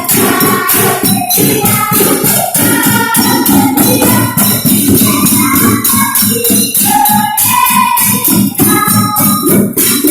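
Rhythmic percussion with steady jingling like a shaken tambourine, and voices singing over it.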